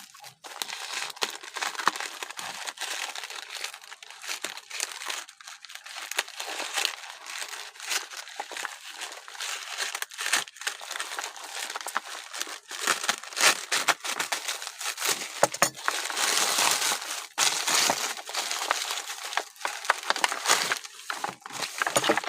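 Parcel packaging being opened and handled by hand: a continuous run of crackling and rustling with many sharp little clicks, busiest and loudest in the second half.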